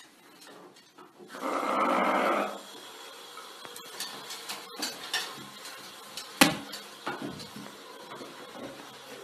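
Tap water running into a ceramic washbasin, louder for about a second near the start and then steady, with scattered light clicks and one sharper knock past the middle.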